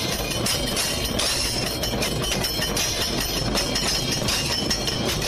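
A procession drum ensemble of shoulder-slung barrel drums beaten in a fast, dense, unbroken rhythm, with cymbals ringing over it.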